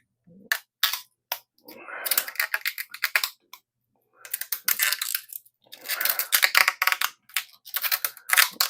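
Adhesive tubeless rim tape being worked into a bicycle rim bed by hand, crackling and clicking in irregular short bursts as the tape is pressed down and the wheel handled.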